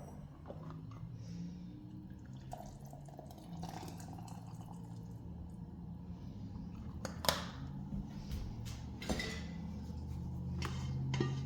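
Thick gravy being poured from a pot into a serving dish, dripping, with a few sharp clinks against the pot.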